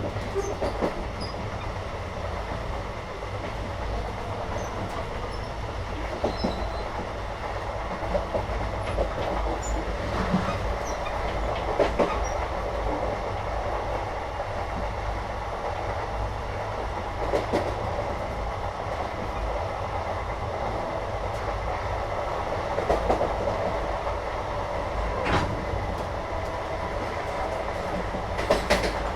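Inside a moving Indian passenger train carriage: a steady low rumble of the running coach, with a few sharp knocks and clanks from the wheels and couplings every few seconds.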